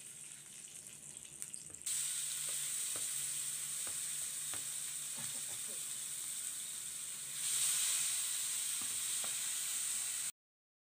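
Koi (climbing perch) frying in hot oil in a frying pan. It starts quiet with a few light clicks, then a loud sizzle starts suddenly about two seconds in as a fish goes into the oil, and it grows louder about seven and a half seconds in as a second fish is added. The sound cuts off suddenly just before the end.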